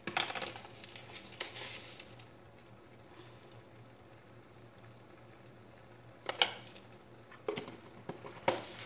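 Salt shaken from a shaker over chicken in a pan, with a utensil clattering and scraping against the pan, then a few sharp clicks near the end as the salt container is handled and set down.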